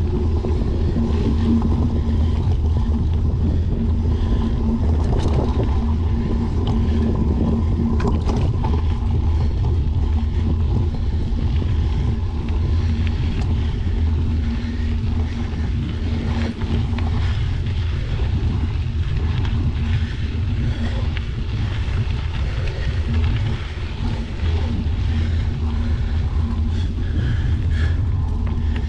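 Bicycle rolling along a dirt trail: a steady low rumble of tyres and wind buffeting a bike-mounted camera's microphone, with a steady hum underneath.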